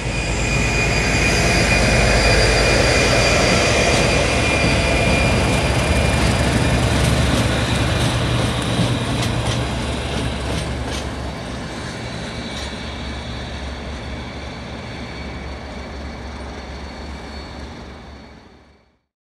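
Class 37 diesel locomotive's English Electric V12 engine working as it passes close by, a deep rumble with a steady high whistle over it. A few sharp clicks come from the wheels over rail joints about halfway through. The sound eases off, then fades out near the end.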